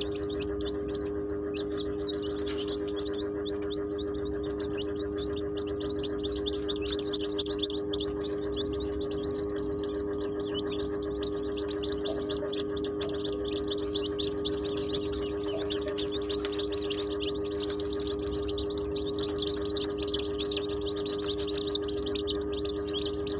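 Newly hatched chicks peeping: runs of short, high, falling peeps, several a second, loudest in two spells, over a steady low hum.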